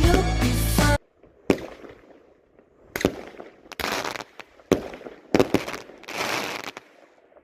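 Music that cuts off abruptly about a second in, then a fireworks display: four sharp bangs a second or so apart, with two short stretches of crackling hiss between and after them.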